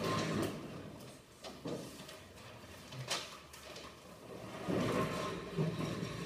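A table being dragged across a hard floor, its legs scraping with a low grinding drone that starts about two-thirds of the way in. Before it, a few scattered knocks and rustles.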